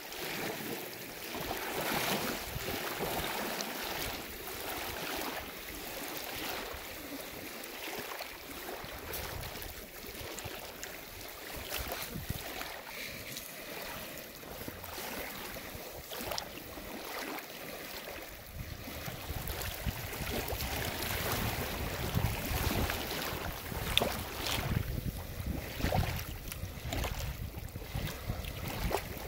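Small wind-driven waves lapping and splashing over shallow pebbles at a lake's edge, with wind. From about 18 seconds in, a low rumble of wind on the microphone grows stronger.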